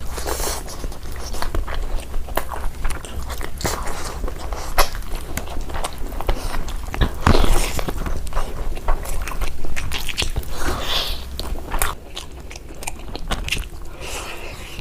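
Close-miked eating sounds: bites and chewing of curry, with irregular wet smacking clicks throughout, a little quieter near the end.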